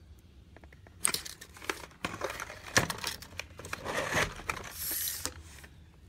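Steel tape measure being drawn out further and slid along a plastic keyboard case. Irregular scraping and rustling in bursts, with a few sharp clicks, from about a second in until shortly before the end.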